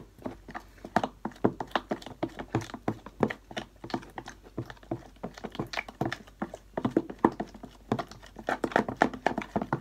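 A metal spoon clicking and tapping against a container while stirring slime glue: quick, irregular clicks, several a second, some with a brief ring.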